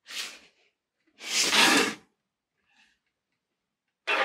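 Cardboard and plastic packaging of a boxed vinyl figure being handled: three separate rustling scrapes, the loudest and longest about a second in, another short sharp one near the end.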